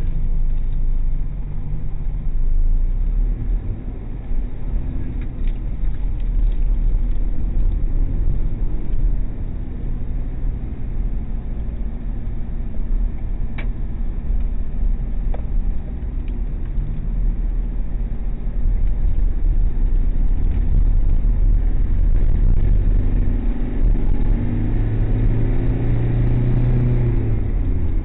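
Car engine and road rumble heard from inside the cabin by a dashcam as the car drives in traffic, with the engine note climbing as it speeds up near the end.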